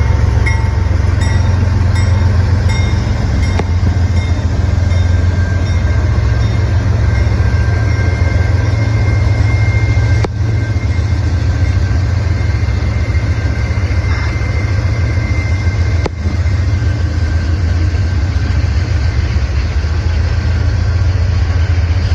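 Several CSX GE diesel-electric freight locomotives passing at close range, a loud steady engine rumble with rail and wheel noise. A run of regular clicks comes in the first few seconds.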